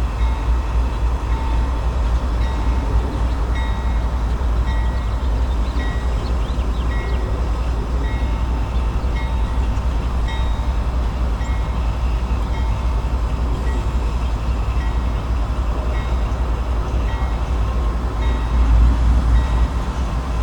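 A GE AC44C6M diesel locomotive's old mechanical bell rings about once a second over the heavy, steady rumble of the locomotive as it pulls a coal train.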